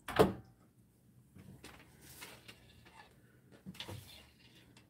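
A sharp thump just after the start, then soft scattered knocks and rustles of things being moved about on a table.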